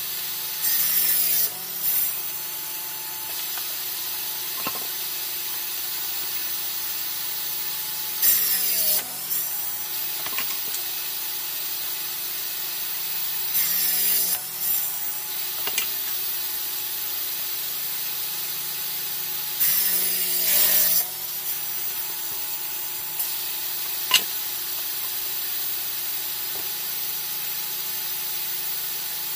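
Homemade table saw, a circular saw blade driven from under a plywood top, running with a steady whine and making four short crosscuts through small wooden boards, about six seconds apart. During each cut the blade's pitch sags as the motor slows under load, then climbs back. A single sharp click comes near the end.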